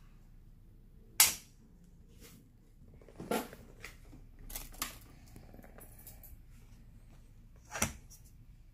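A handful of sharp plastic clicks and knocks from a small round Brennenstuhl battery LED work lamp being handled, its push-button switched and the lamp knocked against the mat. The loudest click comes about a second in and another near the end, with softer ones between.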